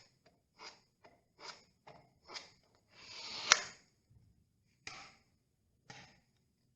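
A filling knife spreading filler, in short scraping strokes about once a second. One longer drawn stroke ends in a sharp click a little after halfway.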